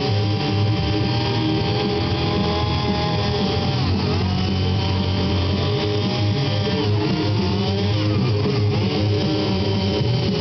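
Guitar music playing, with an engine-like hum beneath it whose pitch dips and recovers twice. The hum may be a chainsaw working under load.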